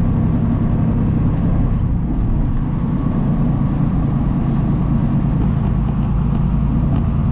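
Steady drone of a semi truck's diesel engine and tyre noise inside the cab while driving, holding an even level.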